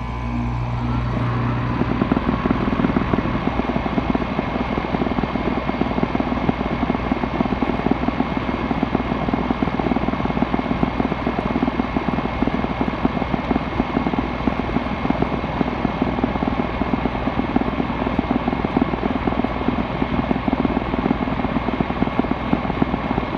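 Air compressor just switched on, coming up to speed in the first couple of seconds, then running steadily and loudly with a fast, even pulsing.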